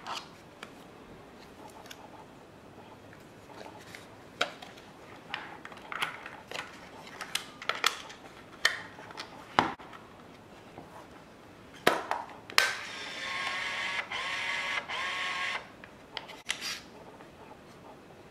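Small plastic handling clicks as 35mm film is laid into an Olympus mju (Stylus) compact camera. About twelve seconds in, two sharp clicks as the back is snapped shut, then the camera's built-in motor whirs steadily for about three seconds, auto-loading the film to the first frame. A few light clicks follow.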